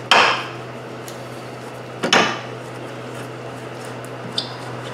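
Phillips screwdriver working small plastic trim fasteners out of a car's upper radiator support cover: two short scraping clatters about two seconds apart and a small click near the end, over a steady low hum.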